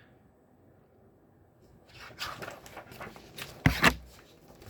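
Near silence for about two seconds, then an irregular run of rustles and light knocks, the loudest knock about three-quarters of the way through.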